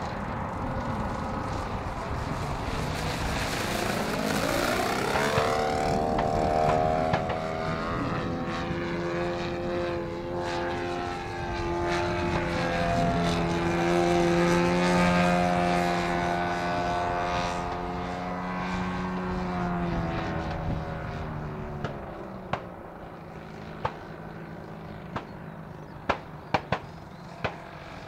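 Petrol engine and propeller of a 50%-scale clipped-wing Piper Cub RC plane flying overhead. Its pitch rises about five seconds in, holds steady, then drops and fades after about twenty seconds. A few sharp clicks come near the end.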